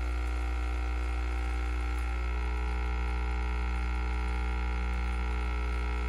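KOTLIE 3-in-1 capsule coffee maker brewing a K-cup, its pump running with a steady low hum.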